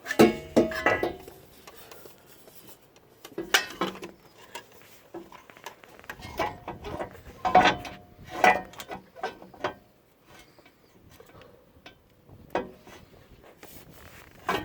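Irregular metallic clanks, knocks and scrapes as a steel exhaust header is worked into place against the engine and onto the exhaust studs, some knocks briefly ringing.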